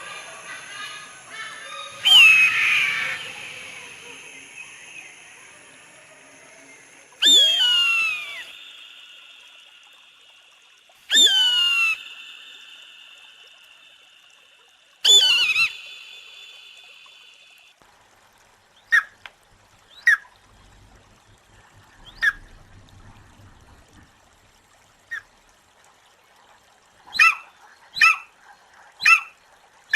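Bird-of-prey calls: three long screams that sweep downward in pitch, about four seconds apart, followed by short, sharp calls that come irregularly at first and then about once a second near the end.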